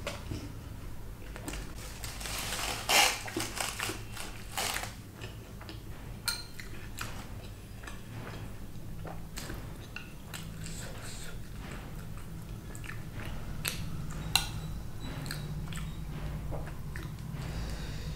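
Close-miked chewing and biting of Indian fried bread and chickpea curry, with crisp crunching during the first few seconds, then softer wet chewing and scattered clicks over a low steady hum.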